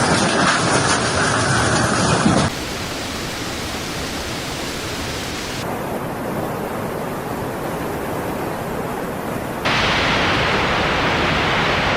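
Rushing water: a steady, even noise that switches abruptly to a quieter, duller sound about two and a half seconds in and becomes louder and brighter again near the end.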